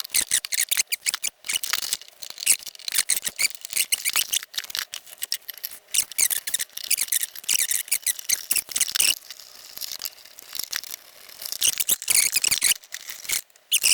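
Hand screwdriver working out the screws under the feet of a metal instrument case: irregular, high-pitched metallic scraping, squeaking and clicking as the screws turn.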